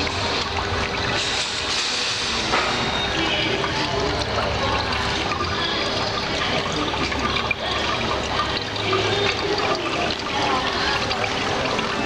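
Water splashing and trickling steadily over a small decorative tabletop fountain with a water-turned crystal ball, with a faint steady hum underneath.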